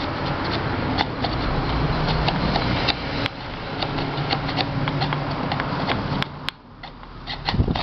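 Steel hand file rasping along the aluminium rim of a pressure cooker lid in quick scraping strokes, smoothing the chewed-up edge so the rubber gasket can seal. The filing stops about six and a half seconds in.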